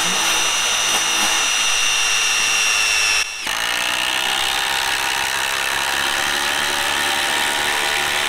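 Milwaukee M18 Fuel Gen 3 brushless impact driver hammering a 4-inch lag bolt into a wooden block, running steadily under load with a high whine. It breaks off briefly about three seconds in, then carries on with its whine a little lower.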